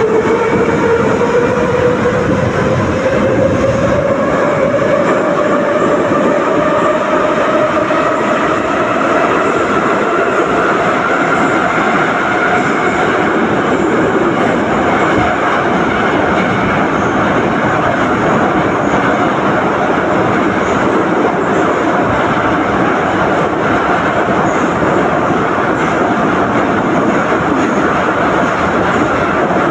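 A 'Nomernoy' (81-717/714-series) metro train accelerating hard: the traction motors' whine climbs steadily in pitch for the first ten seconds or so, then levels off at speed, over loud wheel and tunnel rumble.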